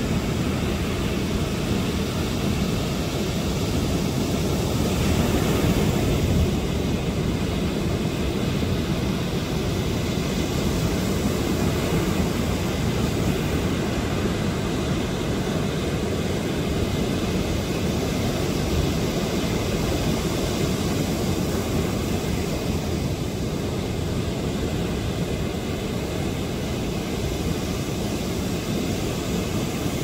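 Sea waves breaking and washing up a sandy beach: a steady rushing noise of surf, heavy in low rumble.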